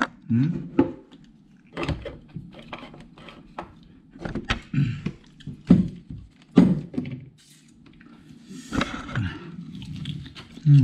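Close-up eating sounds: chewing and smacking on a fried chicken drumstick, with short hums and scattered clicks and knocks. A rustle, like the paper food wrapping being handled, comes about nine seconds in.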